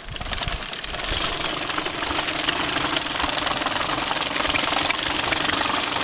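Ground-driven, horse-drawn sickle-bar mower chattering rapidly as its cutter bar cuts pasture grass, building up over the first second as the team pulls forward and then running steadily.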